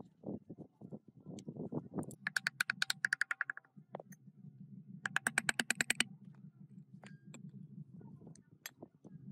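Ratchet wrench clicking rapidly and evenly in two runs, the second about a second and a half after the first, as bolts on a cast-iron engine block are worked, over a steady low hum.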